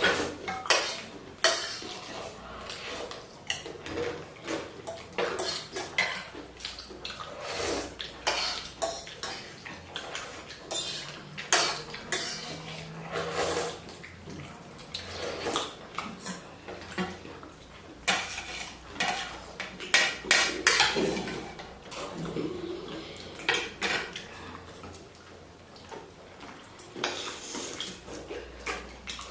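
Spoons and other cutlery clinking and scraping against bowls while eating chicken thukpa, with irregular clicks and knocks throughout.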